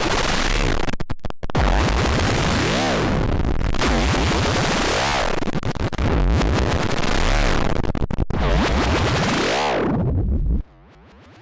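Harsh, distorted electronic 'broken TV' sound effect: loud static-like noise with a tone that sweeps up and falls back about every two seconds, broken by brief dropouts. It cuts off suddenly near the end.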